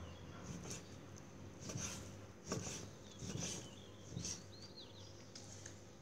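Kitchen knife slicing grilled pork neck on a wooden chopping board: a short cut-and-tap on the board about once a second.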